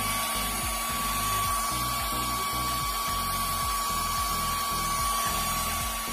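Loud rush of a cooling fan in a battery-powered class-D power amplifier under test, with a steady high whine that stops near the end. Under it is the low pulsing beat of bass-heavy music the amplifier is playing through its speaker.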